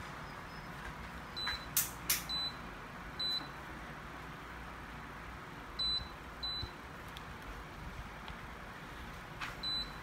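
Akira mini split indoor unit beeping once each time it receives a button press from its remote, about six short high beeps spread out, with a couple of sharp clicks about two seconds in. Under it runs the steady hiss of the unit's airflow.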